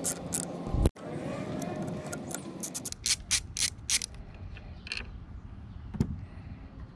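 Ratchet clicking in short runs, about five clicks a second at its busiest, as a Torx bit unscrews the motorcycle's handlebar clamp bolt, with one sharp metallic click near the end.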